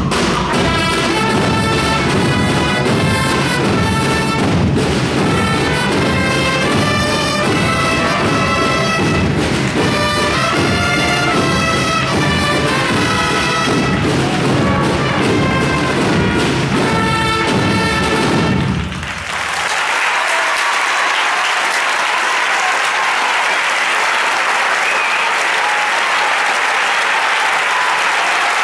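Brass-and-drum marching band of trumpets, trombones and drums playing a processional march, which ends about two-thirds of the way through. Audience applause follows and runs on to the end.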